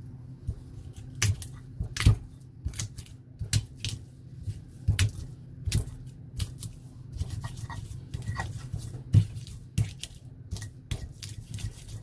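Stone pestle knocking and grinding in a black volcanic-stone mortar (Indonesian cobek and ulekan), crushing candlenuts into a chili and shallot spice paste. Sharp, irregular knocks come about once a second over a steady low hum.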